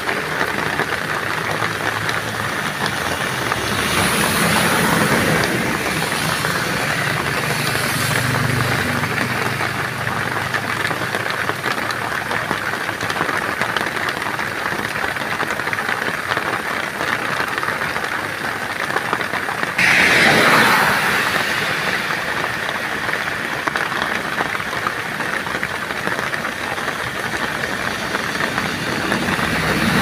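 Steady hiss of heavy rain, with motor vehicles passing on the wet road: a bus's engine and tyres on the water, and motorcycles. About 20 seconds in, a sudden swell of louder noise fades over a couple of seconds.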